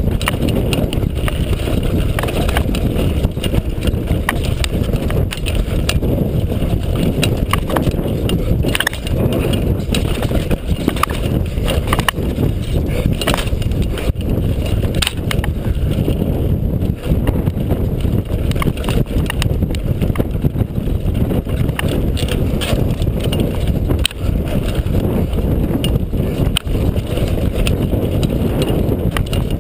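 Downhill mountain bike ridden fast down a dirt forest trail, heard through the rider's mounted camera: a constant low rumble of tyres and air, with frequent sharp knocks and rattles of the bike over bumps.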